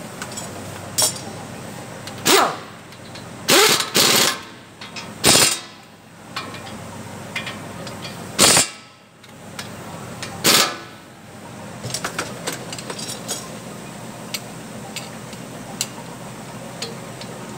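Air impact wrench rattling in about half a dozen short bursts, spread over the first two thirds, over a steady workshop hum.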